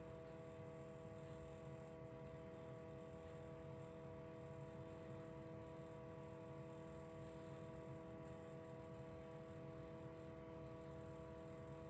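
Near silence: a faint, steady hum made of several fixed tones, unchanging throughout.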